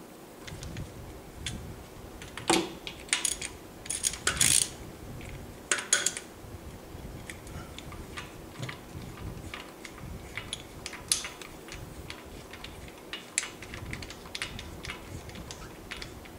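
Light metallic clicks and clinks of a spark plug socket and spark plugs being handled during spark plug removal. The loudest clinks come in a cluster from about two and a half to six seconds in, with sparser ticks after.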